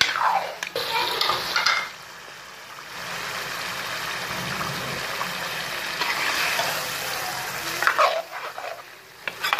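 Chickpeas and chicken sizzling in masala in a large metal pot while a metal spoon stirs and scrapes the pot. Louder scrapes come in the first two seconds and again about eight seconds in.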